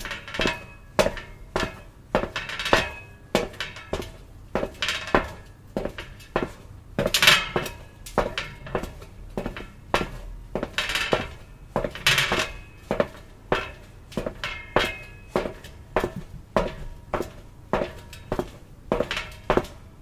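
Footsteps on metal: a steady walk of clanking steps, about two a second, each with a short metallic ring.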